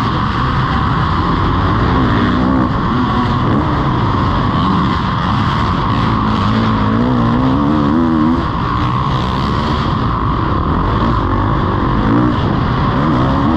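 Kawasaki KX450's four-stroke single-cylinder engine revving hard and backing off again and again as it is ridden around a dirt track, its pitch rising and falling through the turns, heard from a helmet-mounted camera.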